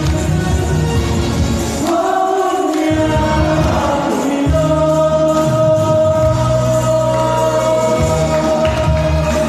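A song played loud through stage loudspeakers, with singing over a bass line; the bass drops out for about a second, about two seconds in, then comes back.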